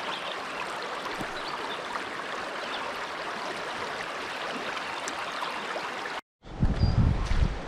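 Strong creek current running over rocks, a steady rushing. About six seconds in it cuts off, and gusty wind rumbles on the microphone.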